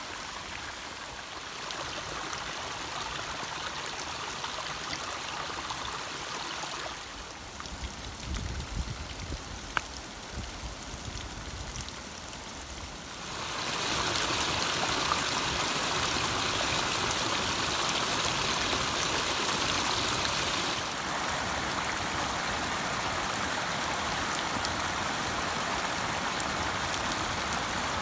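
Floodwater running in a stream down a bush trail. About halfway through it becomes louder and fuller, as white water rushes over rocks.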